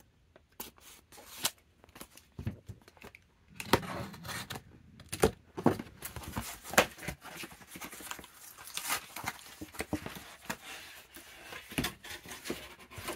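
Cardboard mailer being pulled and torn open by hand: a few light clicks and knocks at first, then from about three and a half seconds in a dense run of tearing and crackling cardboard.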